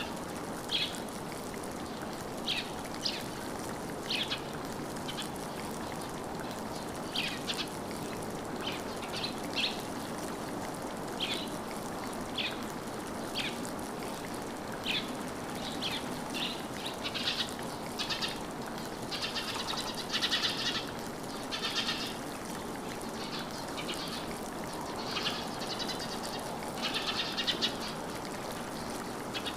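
Birds calling: short, sharp chirps about once a second, becoming denser, longer and buzzier after about two-thirds of the way in. A steady low hiss runs underneath.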